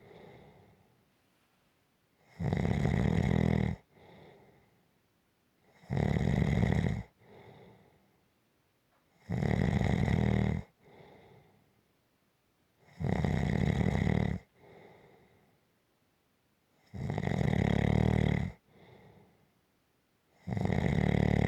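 Rhythmic snoring: a loud snore lasting about a second and a half, coming at even intervals of roughly three and a half seconds, each followed by a short, much fainter sound. Five full snores are heard, and a sixth starts near the end.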